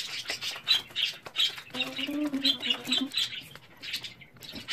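A deck of tarot cards being shuffled by hand: a quick, irregular run of papery flicks and rustles. A short, steady low hum sounds in the middle, from about two seconds in to about three.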